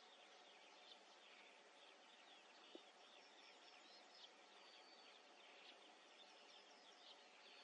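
Faint chorus of small birds chirping and whistling in the distance over a steady background hiss, with one small click about three seconds in.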